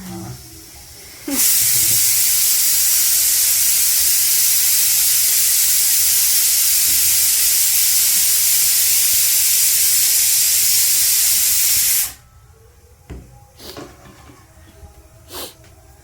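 Loud, steady hiss of escaping steam that starts suddenly about a second in and cuts off sharply about twelve seconds in. Faint clicks follow.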